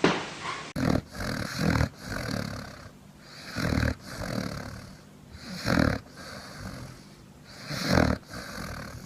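A sleeping Labrador retriever snoring, with a loud snore about every two seconds.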